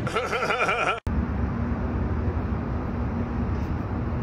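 Steady outdoor background rumble like distant traffic, with a faint low hum running through it. It follows about a second of a warbling, wavering pitched sound that cuts off abruptly.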